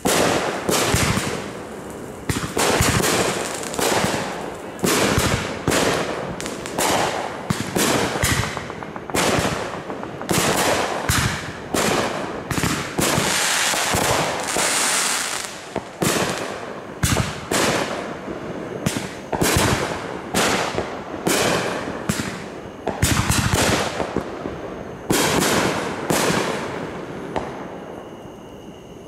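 A dense barrage of aerial fireworks: shells bursting in quick succession, often several bangs a second, densest about halfway through and thinning out in the last couple of seconds.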